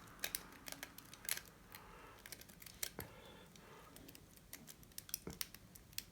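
Faint, irregular small metallic clicks and scrapes of a pick being raked through the pins of a lock under tension.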